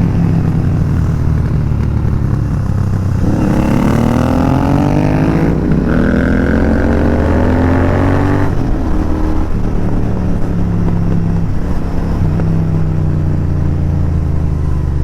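Royal Enfield Continental GT 650's 648 cc parallel-twin engine, breathing through an aftermarket AEW TE101 exhaust, pulling on the road. About three seconds in the revs climb twice in a row. They drop back near the middle, and the engine settles to a steady note.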